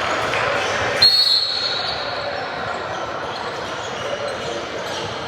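A referee's whistle blows once, a sudden shrill blast about a second in, over the echoing gym background of basketballs bouncing and people's voices.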